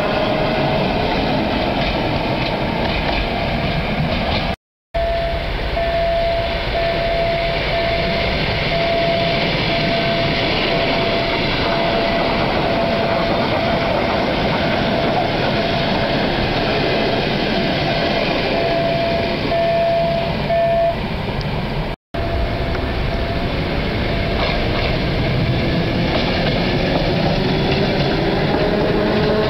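Electric multiple unit trains passing close by, with steady rail running noise and an electric motor whine. The whine falls in pitch at the start, holds steady through the middle and rises near the end. The sound cuts out briefly twice.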